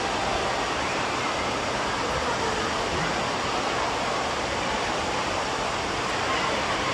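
Steady rush of running and spraying water from water-park play features, with faint children's voices mixed in.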